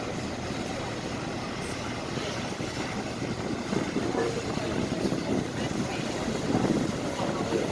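Steady rumbling background noise with faint voices now and then.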